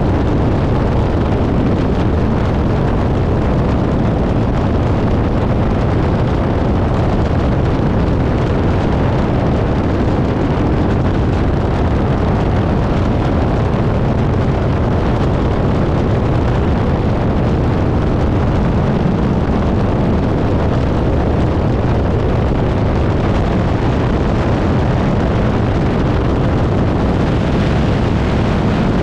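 Biplane's engine and propeller running steadily in flight, heard as a loud, even drone mixed with wind buffeting the tail-mounted camera's microphone in the slipstream.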